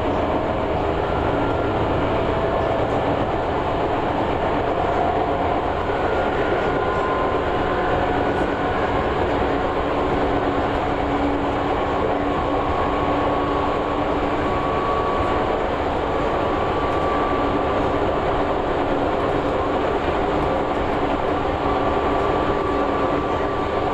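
Tobu 6050 series electric train running at speed, heard from inside the leading car: a steady rumble of wheels on rail under a motor and gear whine that creeps slowly upward in pitch as the train gathers speed.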